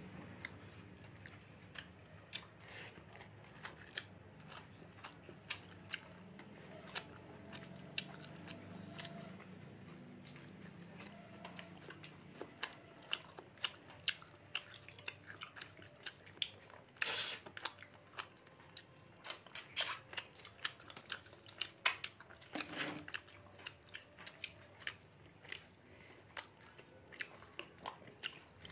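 Close-up mouth sounds of a person eating fish and rice: soft chewing with frequent small wet clicks and smacks, now and then a light crunch. There are a couple of louder short knocks past the middle.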